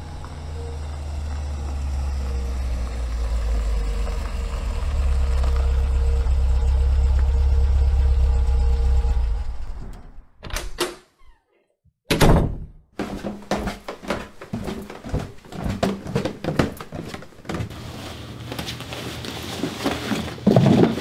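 A steady low rumble for about ten seconds, then after a short gap a sharp hit, followed by a run of knocks and clicks and a heavier thud near the end: a person coming in through a house door and moving about the hallway.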